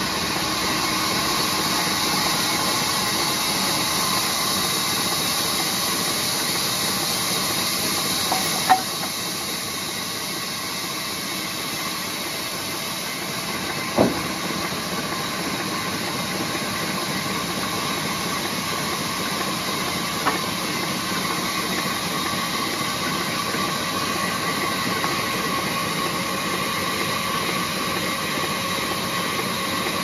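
Large sawmill band saw running and ripping lengthwise through a teak log, a steady noise with a few sharp knocks: one about a third of the way in, the loudest near the middle, and one about two-thirds in.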